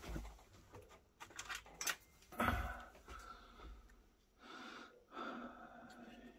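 Quiet handling of an antique revolver and a digital caliper on a workbench mat: a few light clicks and a knock about two and a half seconds in, then two soft breathy exhales near the end.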